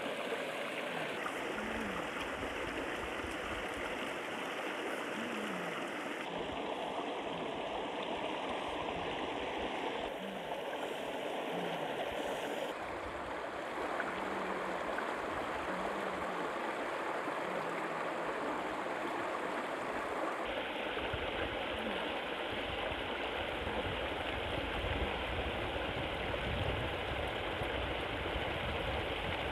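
River water rushing over rocks in shallow rapids: a steady, even wash of water noise.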